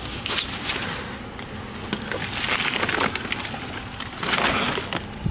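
Plastic bag crinkling and rustling in irregular swells as it is rummaged through for cans.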